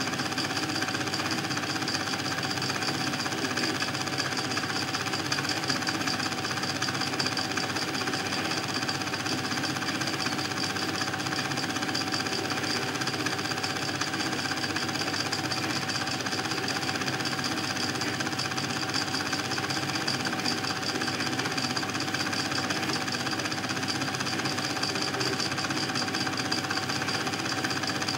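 An 8 mm film projector running with a steady, rapid mechanical clatter.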